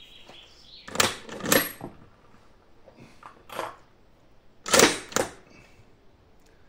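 Sharp metallic clicks of a Yugoslav M48A Mauser's turn-bolt action being worked: two close pairs, about a second in and again near five seconds in, with a fainter click between.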